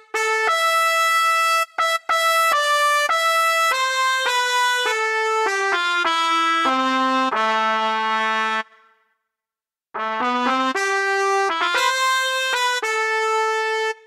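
Sampled trumpet patch (reFX Nexus 4 'Real Trumpet' preset) playing a single-line melody, one note at a time. A first phrase steps down to low held notes, a pause of about a second follows, then a second phrase.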